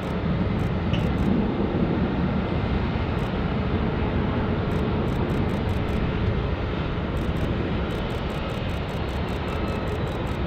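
Twin turbofan engines of a Boeing 767 freighter on short final to landing: a steady jet noise, a little louder in the first couple of seconds, running on as the aircraft touches down near the end.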